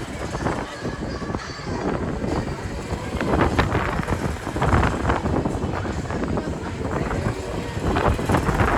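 Wind rushing over the microphone on a moving PWS Super Trooper fairground ride, heard as a dense rumble that surges in gusts several times.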